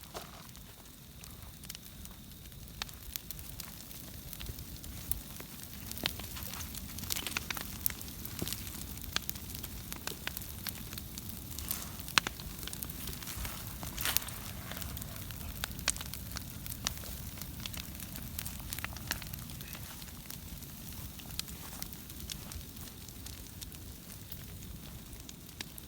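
Burning pile of cut pine branches and brush, crackling steadily with frequent sharp pops over a low rumble.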